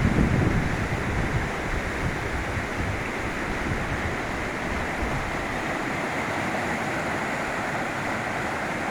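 Waterfall: a steady rush of falling water, with wind buffeting the microphone for the first moment.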